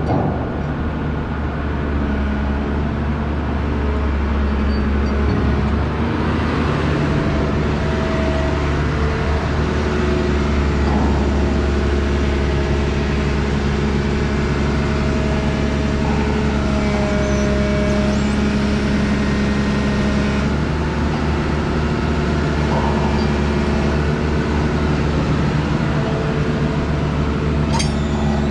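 22-ton JCB JS220 crawler excavator's diesel engine running steadily under load, with a slight waver in its pitch as the hydraulics lift and swing a suspended steel fuel tank.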